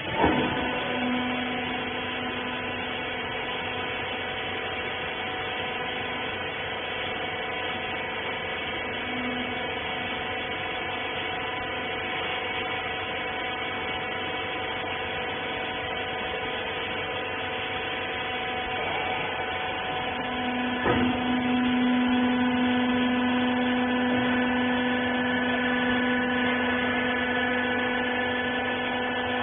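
Rag baler machine running with a steady hum of several even tones. A knock right at the start, and another about 21 seconds in, after which the hum grows louder and stays louder.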